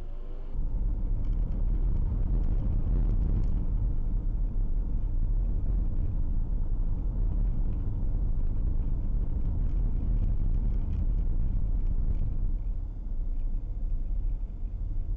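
A car driving, heard from inside the cabin through a dashcam: a steady low rumble of tyre, road and engine noise that comes in suddenly about half a second in, easing slightly near the end.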